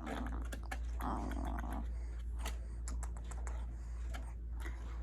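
Close-miked eating sounds: irregular small clicks and smacks of chewing and mouth noise, over a steady low hum, with a short low murmur about a second in.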